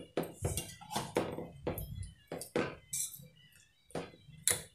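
Hand mixing dry ragi flour in a stainless steel bowl: irregular scrapes and soft knocks of fingers against the steel, about three a second, some louder than others.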